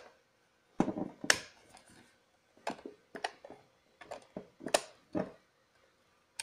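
Plastic stud finder being handled and knocked against a work surface: an irregular series of sharp clicks and knocks with short quiet gaps between.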